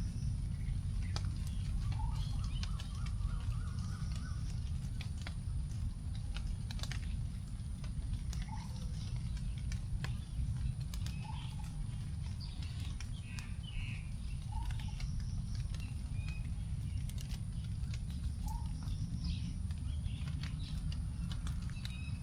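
Leftover raindrops dripping onto forest leaves in scattered, irregular ticks. Birds call over them: a short, repeated note every few seconds and scattered higher chirps, against a steady high insect drone and a low rumble.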